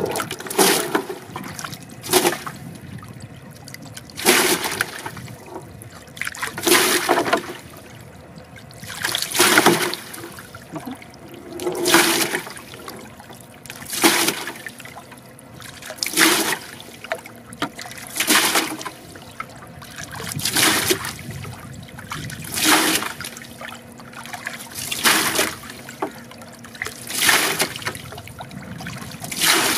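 Water poured into a plastic fish crate over caught snakehead fish, in repeated gushing splashes about every two seconds.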